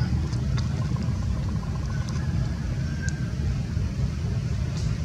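A steady low rumble, with a few faint high clicks and short chirps over it.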